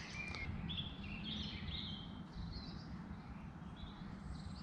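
Wind noise on the microphone, with birds chirping now and then in the background.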